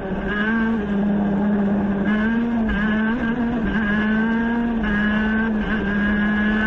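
Onboard sound of a high-revving racing engine held near the top of its revs while accelerating hard, the note briefly dipping several times as it changes up through the gears.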